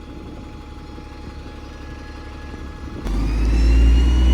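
Single-deck bus's diesel engine running steadily, then about three seconds in it pulls away: the sound gets suddenly louder, with a rising whine as it accelerates.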